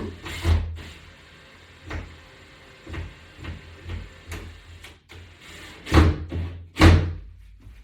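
Scattered knocks and clunks from a screw being tightened on a wall-mounted exercise latch bar, with the two loudest near the end, over a steady low hum.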